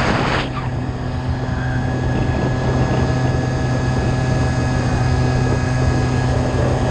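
A 1985 Honda Spree NQ50's 50cc two-stroke engine running steadily at speed under way, warmed up and in its power band, with a short rush of noise at the very start.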